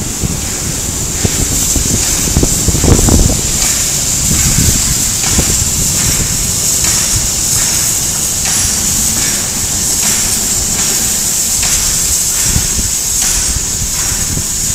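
Harz narrow-gauge steam tank locomotive moving slowly, steam hissing steadily from around its cylinders with a regular chuff. A gust of wind hits the microphone about three seconds in.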